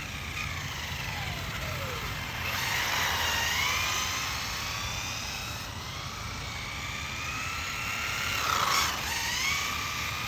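Electric motors of two Rlaarlo RC cars (AK-787 and AK-917) whining, their pitch rising and falling as they speed up and slow down. The loudest moment comes about three-quarters of the way in.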